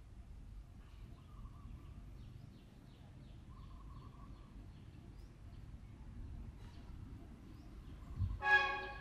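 Outdoor ambience: a low wind rumble with faint bird chirps. About eight and a half seconds in, a short, loud, honk-like tone holds one pitch for about half a second.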